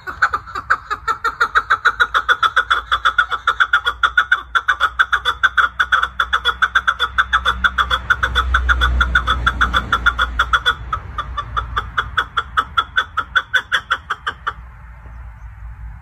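Chukar partridge calling: a long, rapid series of repeated chuck notes at several a second, which stops near the end. A low rumble rises under the calls about halfway through.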